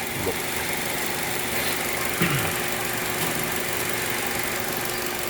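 2007 Saturn Ion's engine idling steadily under the open hood, a continuous even hum.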